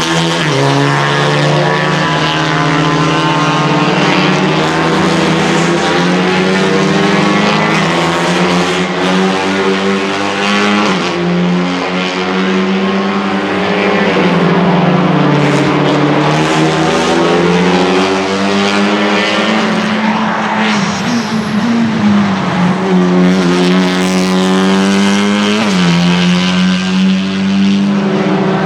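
Honda Civic Type R TCR race cars' turbocharged 2-litre four-cylinder engines running hard on track. The pitch rises and falls, with sudden drops at upshifts.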